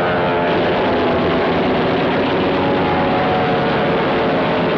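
Aircraft engine noise, a loud steady drone with no letup, laid over gun-camera footage of a strike run.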